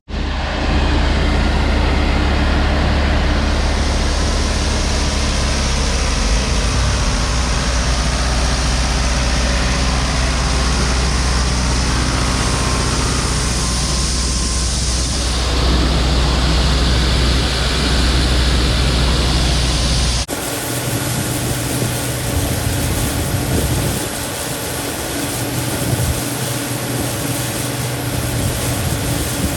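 Heavy farm vehicle engine running steadily with a deep rumble. About two-thirds of the way through, the sound cuts abruptly to a different machine running, thinner, with a thin high whine.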